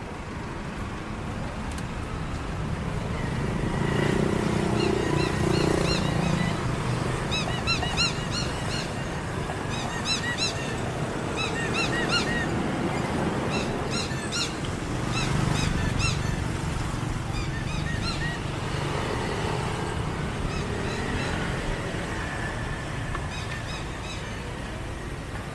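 Busy roadside ambience: a flock of small birds chirping rapidly and repeatedly, over steady traffic noise with vehicles passing more loudly about four seconds in and again around fifteen seconds.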